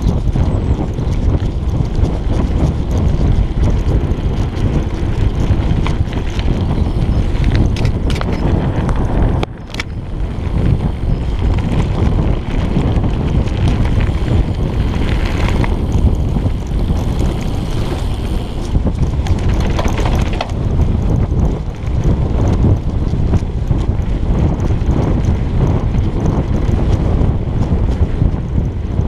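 Wind buffeting the microphone of a chest-mounted GoPro while a mountain bike rides a dirt and gravel track, with tyre rumble and scattered rattles and knocks from the bike. The noise dips briefly about nine seconds in.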